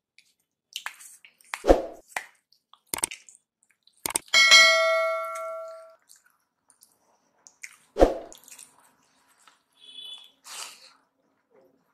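A ceramic dinner plate knocked by a hand wearing a metal ring, giving one clear ringing ding about four seconds in that fades over about two seconds. Two dull thumps come before and after it, with small clicks of fingers working rice and dal on the plate.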